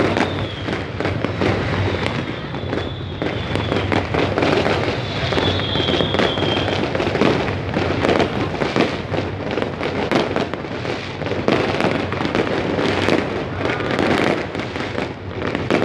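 Many aerial fireworks and firecrackers going off together: a continuous barrage of overlapping bangs and crackling pops, with a few brief high whistles.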